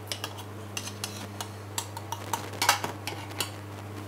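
Metal pans and utensils clinking and knocking on a gas range as short, irregular sharp clicks, busiest about two and a half seconds in, over a steady low hum.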